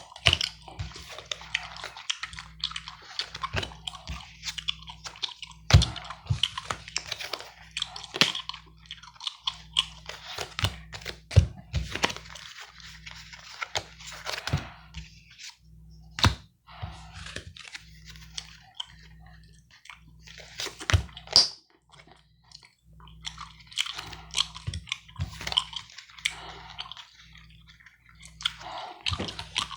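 Close-miked gum chewing: wet, clicky mouth sounds that go on and off, with a few sharp louder clicks and a couple of short pauses.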